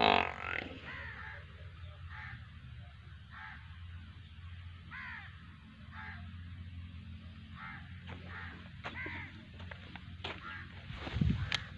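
Crows cawing again and again, a short caw every second or so, the first one loudest. Under them runs a steady low hum, and a low thump comes near the end.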